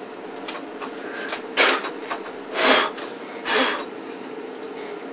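A drunk man retching over a bathroom sink: three short, harsh heaves about a second apart, over a steady low hum.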